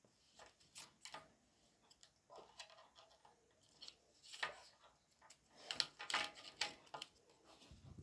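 Light clicks and taps of wooden popsicle sticks and push pins being handled and fitted together, sparse at first and coming thicker and sharper from about halfway in.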